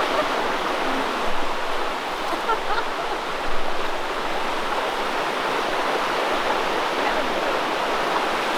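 Steady rushing of flowing water, like a creek running.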